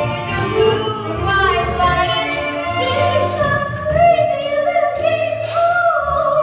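A show tune sung by a solo singer over instrumental accompaniment, the voice holding a long note in the second half.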